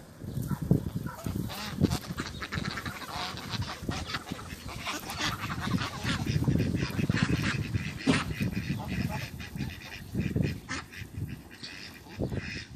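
A mixed flock of domestic geese and ducks calling while feeding on grass: geese honking with duck quacks among them, over many short rustles and clicks.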